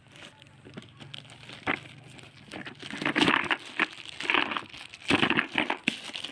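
Packaging being handled: crinkling and rustling in irregular bursts, with a sharp click a little under two seconds in.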